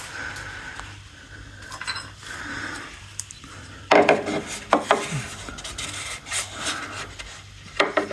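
Oil drain plug being screwed back into a riding mower's engine by hand: rubbing and scraping, with a few sharp clicks and knocks about halfway through and again near the end.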